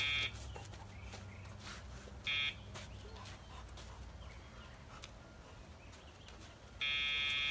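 Electronic e-collar sound box sounding its pager tone, a buzzy steady beep: a short one about two seconds in and a longer one near the end, with the tail of another just at the start. The tone is a cue to the dog to move and turn with the handler.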